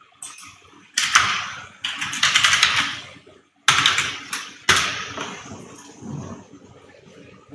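Computer keyboard keystrokes and clicks in short clusters, with a quick run of taps about two seconds in, as a command is typed and entered.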